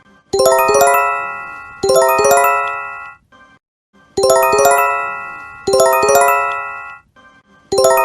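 Japanese J-Alert emergency warning chime: a quick run of four or five bell-like tones that rings on and fades, played twice in a row, then a short pause and repeated, the pairs coming about every three and a half seconds. It is the alarm announcing an earthquake or tsunami warning.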